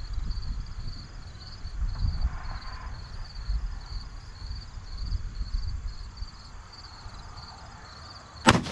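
Insects chirping steadily, with wind gusting on the microphone; just before the end, a single sharp shot from a Ruger American Predator bolt-action rifle in 6.5 Grendel.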